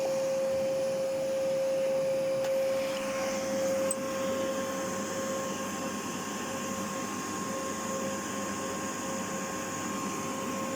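Hoover Whirlwind vacuum cleaner running steadily: an even rushing noise with a strong steady whine on top, which the owner measures at about 530 Hz and takes for a resonant frequency of the machine. The whole sound eases down slightly about four seconds in.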